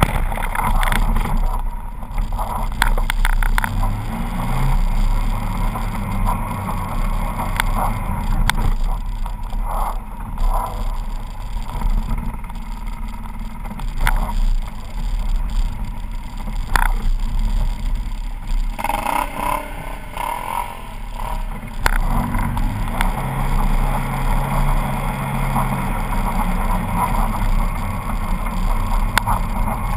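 Polaris RZR 800 side-by-side's twin-cylinder four-stroke engine running under way, its note holding steady with small shifts in pitch now and then, heard from the hood with wind noise. Scattered sharp knocks and rattles from the chassis as it drives over snow.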